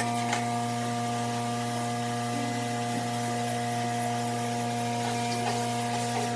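Electric motor of a woodworking machine running steadily with an even hum, with a few light taps about a third of a second in and again near the end.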